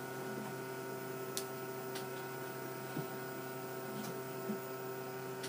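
Home haemodialysis machine running with a steady hum of several held tones, and a few faint clicks now and then.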